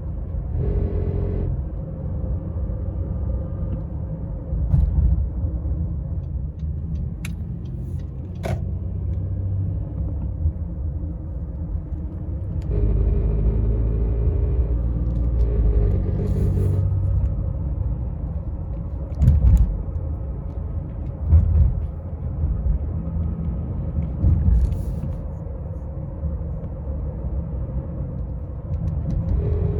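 2017 Honda Ridgeline's 3.5-litre V6 under light throttle, making a low droning rumble that swells and fades several times, with a few sharp clicks. It is the 'vrrrr' vibration that the owner traced to the variable cylinder management (cylinder deactivation).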